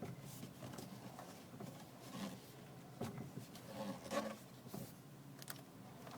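Mazda 3 steering creaking as the wheel is turned: a few short, uneven creaks, the loudest about four seconds in, over a steady low hum.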